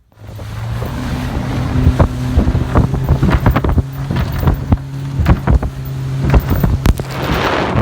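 Motorboat engine running with a steady drone while the hull slaps repeatedly on the chop and wind buffets the microphone. Near the end the engine tone drops away and the wind noise grows.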